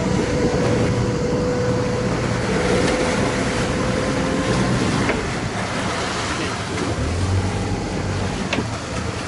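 A sailing yacht's engine running steadily under way, a low drone with water rushing and splashing along the hull. A thin steady whine sounds over it and stops about halfway through.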